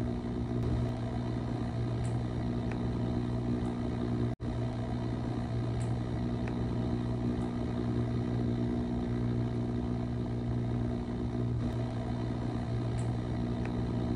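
Steady low engine hum of a submersible descending, a constant drone with a brief cut-out about four seconds in.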